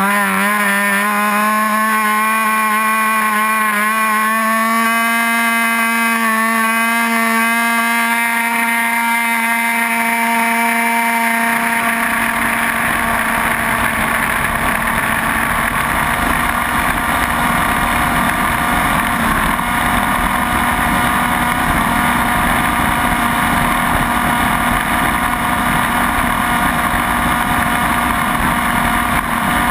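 Small Cox two-stroke glow engine on a propeller-driven tether car, running flat out with a steady high buzz. About eleven seconds in, a rough rushing noise joins it as the car runs around its tether circle.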